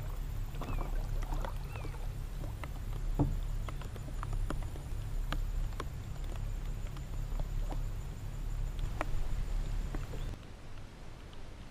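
Steady low hum of a small boat motor with scattered light ticks of rain pattering; the hum cuts off about ten seconds in.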